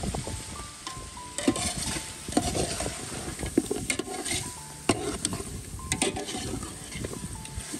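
A metal spoon stirring and scraping goose pieces and onions in a large aluminium pot, with irregular clinks of the spoon against the pot over the sizzle of the meat frying in its fat.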